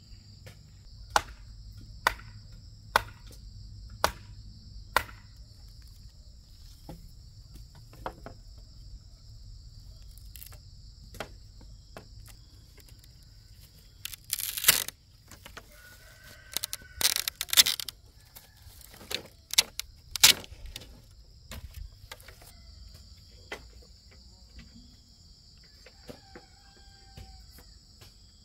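Bamboo pole being struck: five sharp knocks about a second apart, then bursts of clattering bamboo around the middle, over a steady high chirr of insects. A rooster crows faintly in the background.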